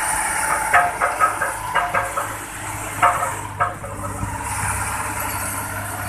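Diesel engine of an Ingersoll Rand single-drum road roller running steadily at close range as it rolls over fresh asphalt. Several sharp clacks come in the first four seconds, and passing traffic makes a hiss that swells and fades.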